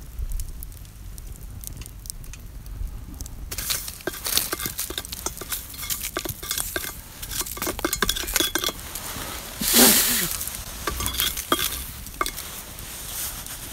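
Embers being scraped off a Dutch oven lid in a campfire, with dense crackling, scraping and metal clinks from about three and a half seconds in. The loudest scrape comes about ten seconds in. A low rumble comes before the scraping.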